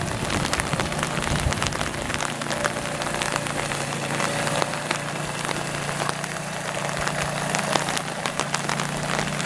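Small outboard motor running steadily on a bathtub boat, a low even hum, under a constant crackling hiss of fine ticks.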